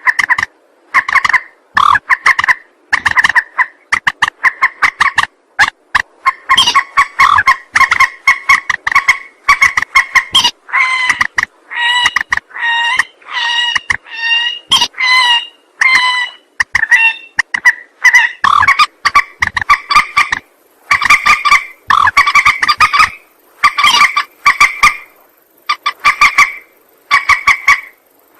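Lure recording of a mandar (rail) calling: rapid runs of short repeated notes in bursts about a second long with brief gaps. The notes are pitched higher for a few seconds near the middle.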